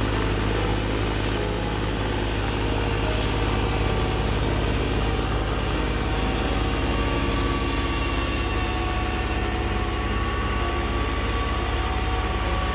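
Kubota B2601 compact tractor's three-cylinder diesel engine running steadily under load, powering a PTO-driven snowblower, with a steady high whine over the engine.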